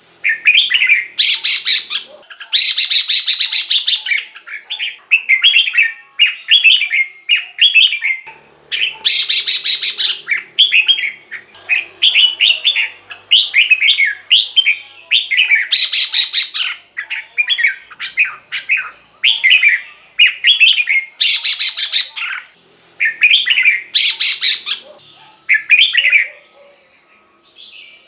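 Red-whiskered bulbul singing short, bright, warbled phrases over and over, broken every few seconds by loud, harsh, buzzy bursts.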